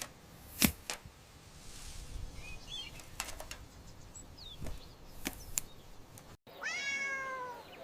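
Faint outdoor ambience with a few sharp clicks and a brief bird chirp, then a cat meows once near the end, a pitched call that falls away.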